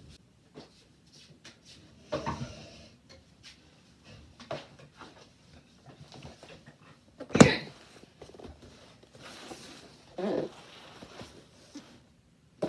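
Handling noises: rustling and scattered light knocks as a person moves about next to the microphone with a blanket and a cardboard box, with one sharp knock about seven seconds in as the loudest sound.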